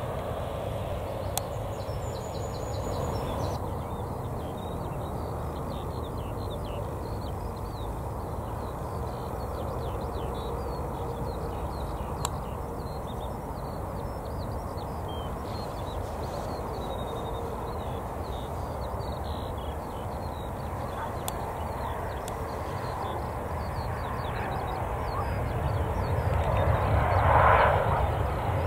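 Jet airliner engine noise: a steady rumble that swells louder near the end as an aircraft comes closer.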